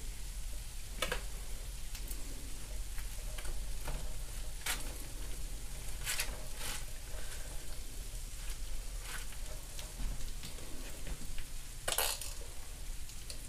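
Ketchup squirted from a plastic squeeze bottle onto hot meatloaves in a few short spluttering squirts, the strongest near the end. Under them runs a faint steady sizzle from the hot baking sheets.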